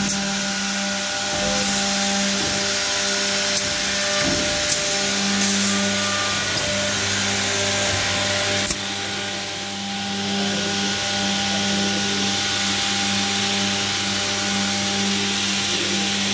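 Brandt edge banding machine running: a steady motor hum under a broad rushing noise of its spinning units and dust extraction, with scattered light clicks and one sharper click about halfway through.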